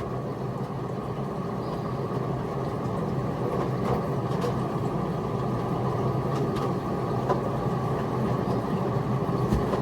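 A steady low mechanical hum, like a motor running, with a few faint light clicks.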